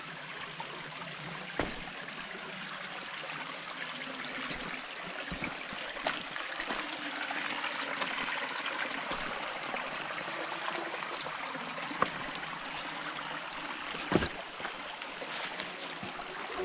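Creek water running steadily over rocks, with a few sharp knocks about a second and a half in and again near the end.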